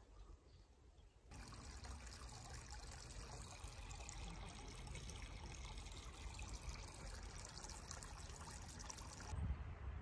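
Small shallow stream trickling, a steady even wash of running water that cuts in sharply about a second in and cuts off just before the end, where a low rumbling takes over.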